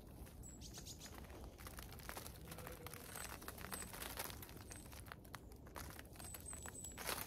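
Snowdrop clumps being pulled apart by hand: faint rustling of leaves and crumbling soil with small crackles, and a louder rustle near the end. A small bird gives short high chirps several times.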